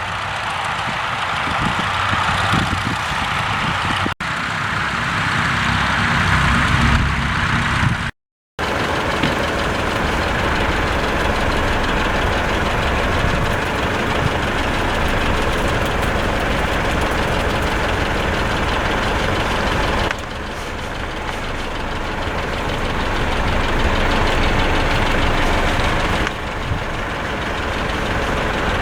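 Vintage tractor engines running steadily, heard across several edited clips, with abrupt changes in the sound about 4, 20 and 26 seconds in and a brief dropout to silence about 8 seconds in.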